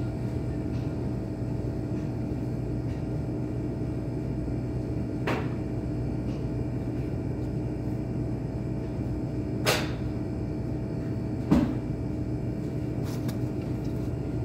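Steady low rumble with a constant faint hum, broken by three sharp knocks about five, ten and eleven and a half seconds in, the last two the loudest.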